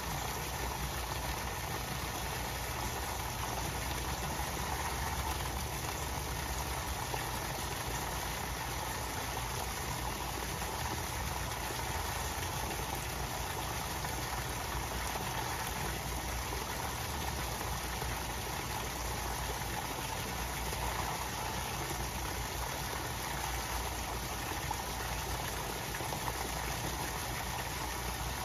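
Steady splashing of water pouring from an inflow pipe into a koi pond, with a low, even hum underneath.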